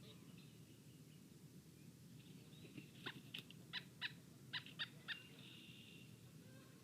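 A pileated woodpecker pecking at a feeder: about eight sharp, irregularly spaced taps around the middle. Faint songbird chirping runs underneath.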